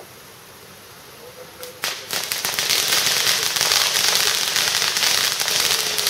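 Firework ground fountains hissing and crackling. They start suddenly about two seconds in and keep up a dense, steady crackle of many small pops.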